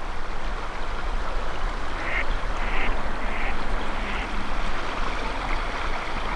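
Steady rush of a flowing river, with a duck quacking faintly four times in a short series about two seconds in.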